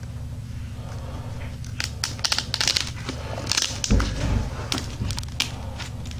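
Close rustling and crinkling handling noise, in short crackly bursts, with a dull bump about four seconds in, over a steady low hum.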